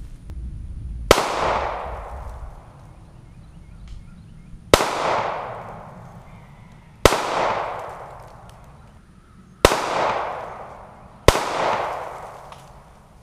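Five 9mm pistol shots from a Zastava M88A, spaced about two to four seconds apart, each a sharp crack followed by a long echoing tail.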